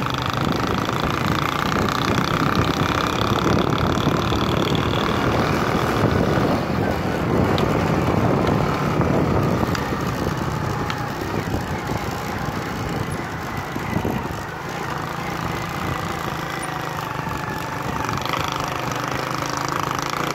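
A vehicle engine running steadily while under way on a rough dirt track, with road noise mixed in. It is a little quieter in the second half.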